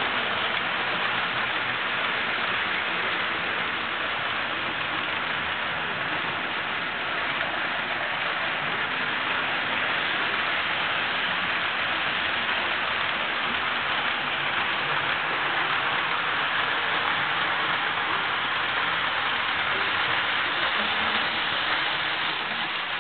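Tyco and IHC HO-scale model train running on the layout's track: a steady hiss-like rattle of small wheels on rails and motor whir, with no breaks.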